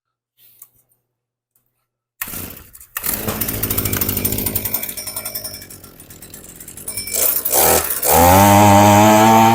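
The small two-stroke engine of a Shindaiwa-made HomePro string trimmer starts about two seconds in and runs unevenly at idle, then is revved up to a loud, steady high speed near the end. The owner judges that air getting in through the cracks of the primer bulb was all that was wrong.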